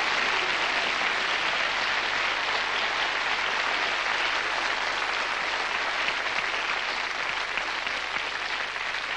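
Audience applauding steadily, dying down a little near the end.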